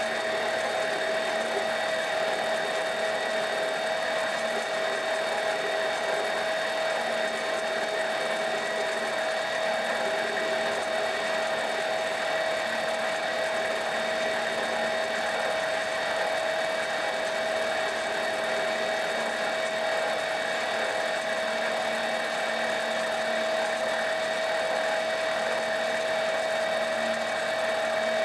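Mini lathe running at a steady speed with a constant high whine, while a hand file is held against the spinning steel rod to chamfer its end.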